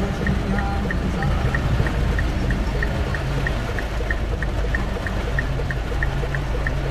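Torrential rain pouring down on the car's roof and windshield, a dense steady rush of water, with a faint regular ticking about three times a second.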